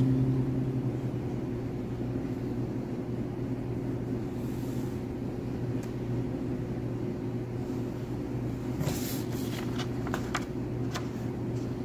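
Steady low mechanical hum of room machinery. A brief cluster of paper rustles and clicks about nine to eleven seconds in, as sheets of paper are handled.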